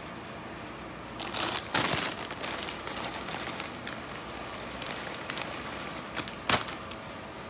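Rustling and scratching as a hand plays with a kitten on a soft fabric couch, loudest about a second to two seconds in, with scattered small crackles and one sharp click near the end.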